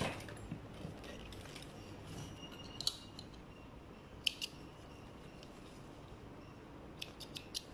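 Small scissors snipping thread in light clicks: a pair about three seconds in, another after four seconds, and a quick run of four near the end.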